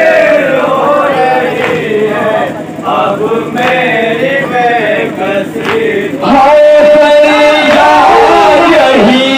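A group of men chanting a nauha, a Shia mourning lament, together, with a few sharp slaps of matam (chest-beating) among the voices. About six seconds in the chanting becomes louder and fuller.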